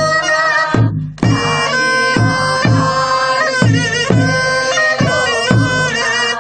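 Korean traditional folk music: a nasal double-reed wind instrument plays a wavering melody over a steady drum beat of about two strokes a second, with a short break about a second in.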